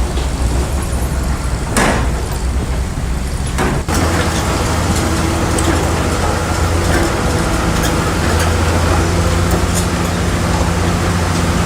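Heavy diesel engine of a bulldozer running steadily under load, with two sharp clanks about two and four seconds in.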